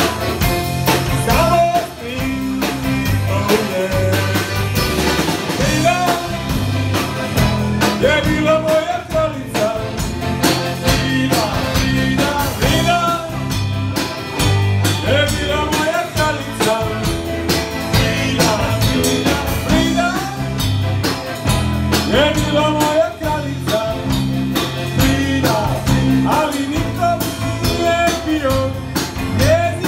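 Live band playing a song on accordion, guitar, electric bass and drum kit, with a sung vocal over a steady beat and bass line.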